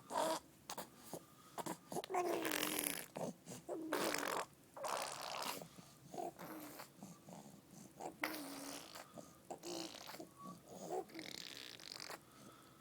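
A young child making silly noises with his mouth and voice: a string of short breathy, blowing bursts and low voiced sounds, some sliding down in pitch, with short pauses between them.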